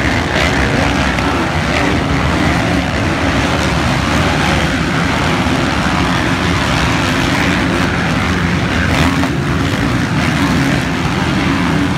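Several motocross dirt bikes racing on the track, their engines running together in a steady, dense din.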